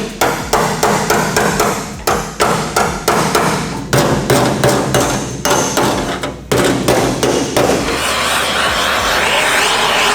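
Hammer blows on metal, about three a second, each with a short ring, broken by brief pauses. Near the end the hammering stops and a steady noise takes over.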